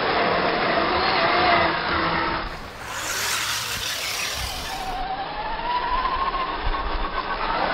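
1/10-scale RC mud trucks' electric motors and drivetrains whining as they rev through mud, the pitch rising and falling with the throttle, over the hiss of churned mud and water. The sound changes abruptly about two and a half seconds in and again around five seconds, where a fresh whine climbs in pitch.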